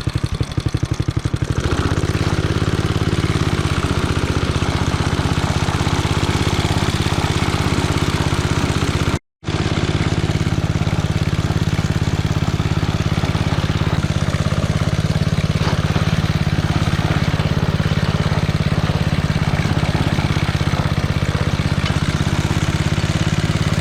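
Locke Triplex reel mower's engine running steadily under way; its note thickens about two seconds in, and the sound drops out for a split second about nine seconds in before carrying on the same.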